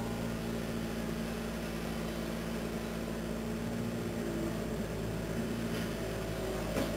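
A steady low mechanical hum with a faint hiss behind it, and a couple of faint ticks near the end; no gunshot.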